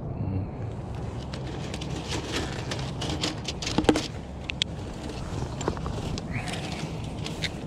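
Fishing gear being handled: a run of light clicks and knocks, the sharpest about four seconds in, over a steady low rumble.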